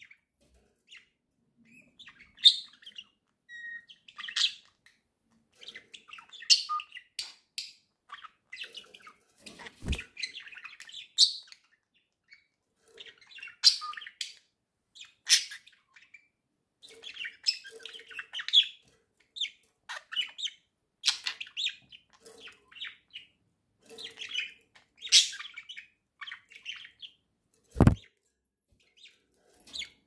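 Pet budgerigars chirping and chattering in short, irregular high-pitched bursts. Two sharp knocks cut in, about ten seconds in and, louder, near the end.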